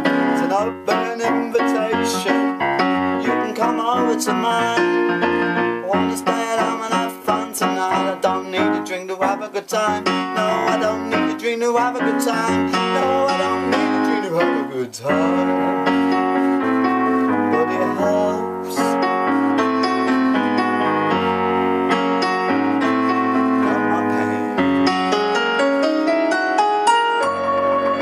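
Electronic keyboard played solo in an instrumental passage of a song. Quick runs of notes fill the first half, then it settles into steadier held chords over a low bass line from about halfway.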